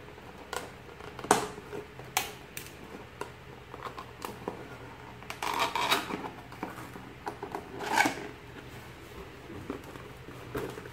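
Plain cardboard box being handled and opened by hand: scattered sharp clicks and scrapes of cardboard as the tuck flap is worked free, with longer, louder rustles about six and eight seconds in as the lid comes up.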